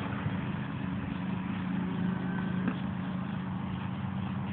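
Steady low hum of a motor or engine running continuously.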